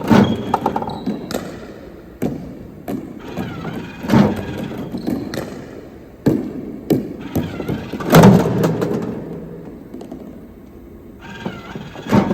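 Spinshot pickleball ball machine launching balls, a sharp thunk with a short ringing tail about every two seconds.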